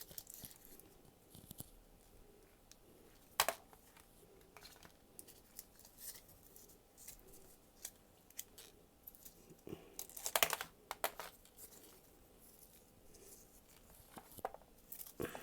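Sparse small clicks, taps and rustles of hands and tools working on an opened laptop. There is one sharper click about three and a half seconds in and a quick cluster of them around ten to eleven seconds.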